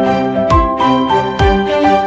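Background music: a melody of held pitched notes over a low beat that falls about once a second.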